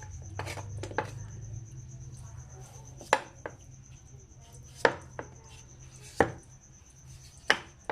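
Knife working on an unripe papaya, likely as it is peeled: sharp, irregular knocks of the blade against the fruit and board, about one every second.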